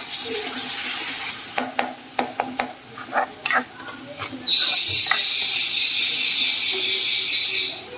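A steel spoon stirring and scraping masala frying in a steel kadai, with scattered clicks over a sizzle. About halfway through, a loud steady high hiss starts and runs for about three seconds, then cuts off suddenly.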